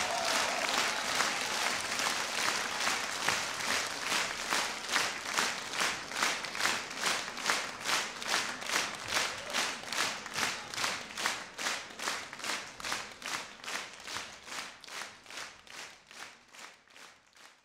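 Audience clapping together in a steady rhythm, about three claps a second, gradually fading out.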